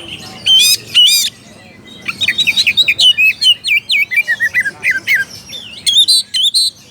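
Oriental magpie-robin (kacer) singing a rival-calling song. Two loud, sharp notes come first, then about three seconds of quick, varied whistles and chirps that slide up and down, and a few more loud notes near the end.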